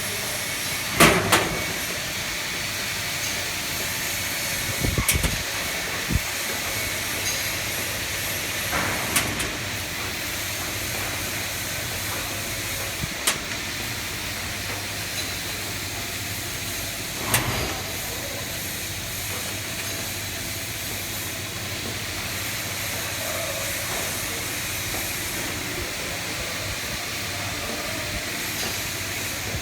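CNC fiber laser cutting machine at work with a steady hiss, broken by short sharp bursts about every four seconds, five in all, over the first eighteen seconds.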